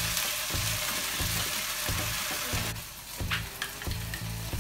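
Boiled noodles sizzling as they fry in olive oil in a stainless pot, stirred with chopsticks. The sizzle drops away sharply about two and a half seconds in, followed by a few light knocks.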